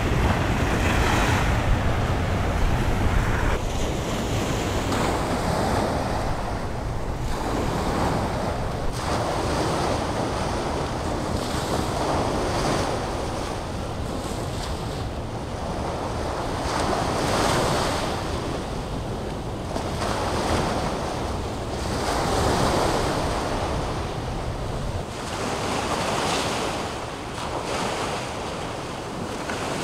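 Waves washing against a rock jetty in surges every couple of seconds, with wind rumbling on the microphone that eases near the end.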